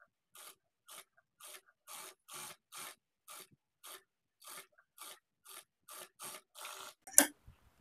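Industrial sewing machine stitching fabric slowly, giving a short rasping tick about three times a second, with a louder click near the end.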